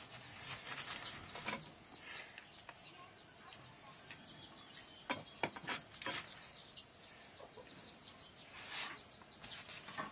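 Chicks peeping in runs of short falling chirps, with a few soft knocks and rustles from hands working over metal bowls.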